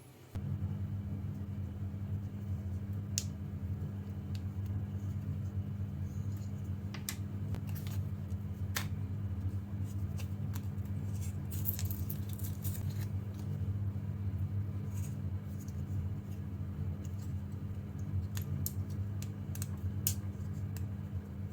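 A steady low hum that starts and stops abruptly, with scattered light clicks and taps of a small plastic alarm door contact being handled as its CR2032 coin-cell battery is changed.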